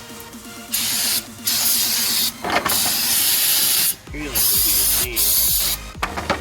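Aerosol brake cleaner being sprayed in about five hissing bursts, each lasting up to a second and a half, with short breaks between.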